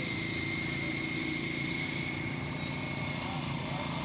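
Steady motor hum with a thin, high whine held throughout, unchanging in level.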